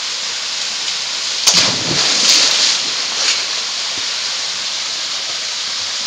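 Steady rush of a small waterfall pouring into a rock pool, with a person's body splashing into the pool about a second and a half in after sliding down the falls, followed by a second burst of splashing.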